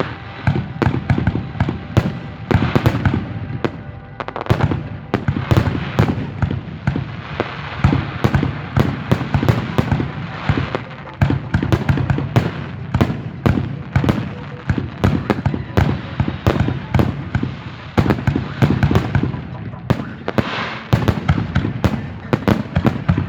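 Fireworks going off continuously: a dense, rapid string of bangs and crackles, many a second, with no pause.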